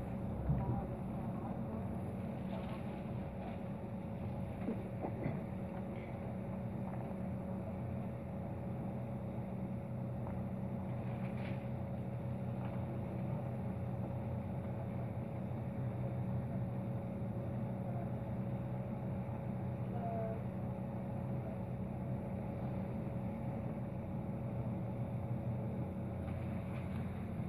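Moving train heard from inside the carriage: a steady low rumble of running on the rails, with a faint steady hum above it.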